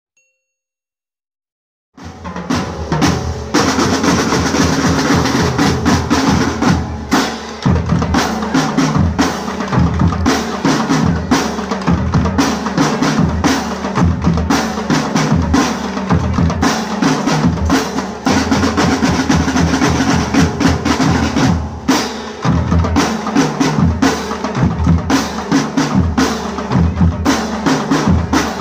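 Silence for about two seconds, then a marching band drum line starts playing: snare drums and bass drums beating a fast, steady rhythm.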